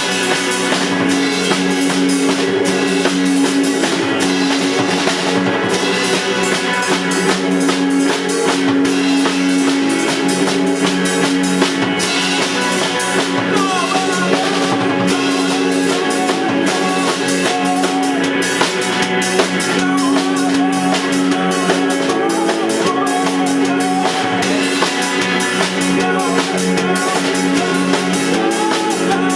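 A band playing an improvised piece live: a drum kit keeps a busy beat under steady held low notes. A wavering higher melody line joins about halfway through.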